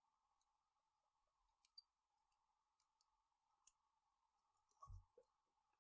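Near silence with a few faint, scattered clicks of a small screwdriver and knife parts as a screw on the Civivi Elementum II knife is tightened down, and a soft low thump about five seconds in.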